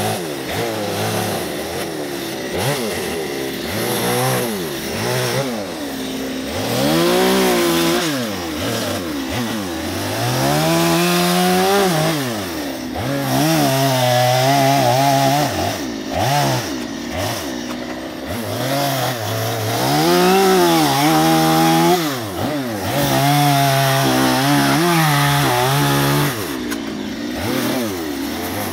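Two-stroke gas chainsaw revving up and down over and over as it cuts into a western red cedar log. The engine pitch climbs under throttle, holds high through each cut, then drops back between cuts.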